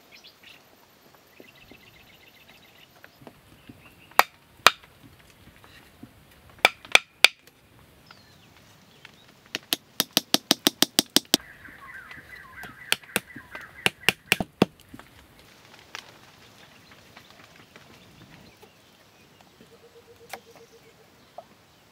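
Sharp wooden knocks of a stick being driven upright into the ground with a wooden-handled tool: a few single blows, then a fast run of about eight blows a second, then several more.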